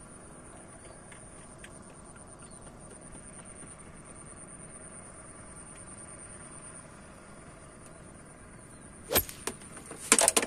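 Quiet open-air background with a faint steady high-pitched whine. Near the end come a few sharp knocks and a short clatter as a bamboo fishing rod is snatched out of its wooden rod holder to strike a bite.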